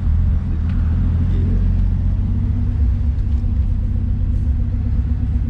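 Steady low engine and road rumble of a car heard from inside the cabin while driving.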